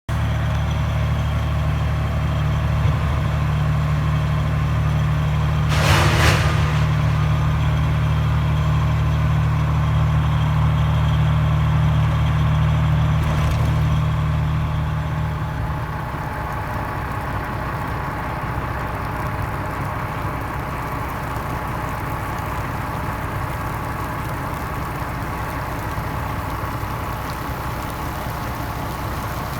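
A vehicle engine idling steadily, a low hum that eases off a little about halfway through. About six seconds in there is a brief rushing noise.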